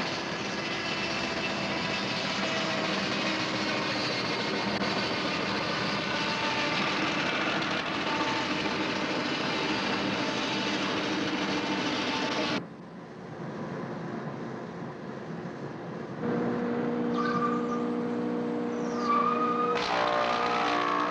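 Large circular saw running through a heavy timber beam: a dense, steady whine with many held tones that cuts off suddenly about twelve seconds in. Quieter machine-shop sounds follow, with a steady hum, a brief wavering whine, and another machine starting up near the end.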